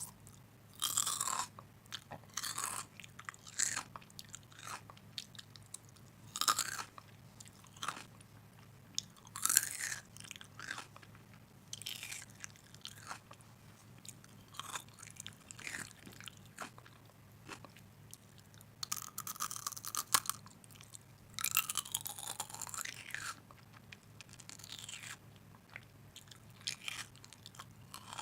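A person biting and chewing crunchy food in separate crunches, one every second or two, with a longer run of crunching about two-thirds of the way through.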